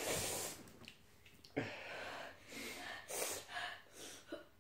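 Sharp, noisy breaths in and out through the mouth from someone whose mouth is burning after eating a super-hot chili, with a plastic ice-pop wrapper crinkling as it is torn open. The sounds come in several short bursts with brief quiet gaps between them.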